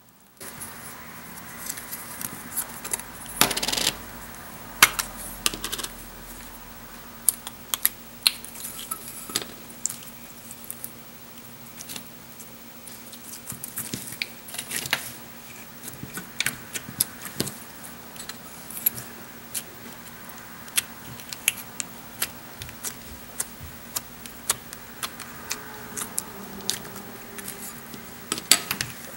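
Clear putty being stretched and squished by hand, giving many irregular sticky clicks and crackling pops.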